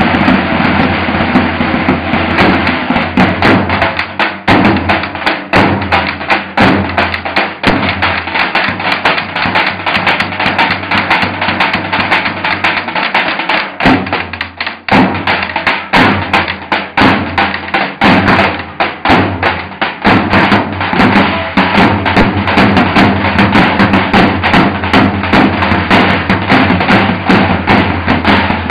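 Three davul bass drums played together with the heavy beater and the thin stick, in a fast, dense rhythm with a brief let-up about halfway through.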